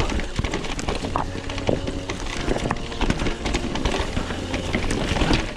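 Mountain bike clattering over a rocky trail: a dense, irregular run of knocks and rattles from the tyres striking stones and the chain and frame shaking.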